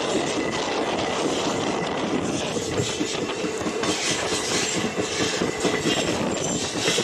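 Local passenger train running along the track, heard from on board: a steady rumble and rattle of wheels and carriages in motion.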